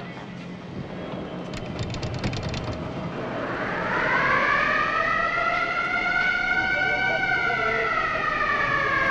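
A siren winds up in pitch over about four seconds, holds, then slowly falls. It is preceded by a short run of rapid clicks over a low rumble about two seconds in.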